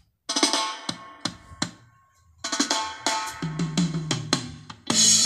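Drum-heavy music playing through a small 10-watt A88 portable Bluetooth speaker with two drivers. The music drops out for a moment at the start and again about two seconds in, then comes back fuller with a steady bass line.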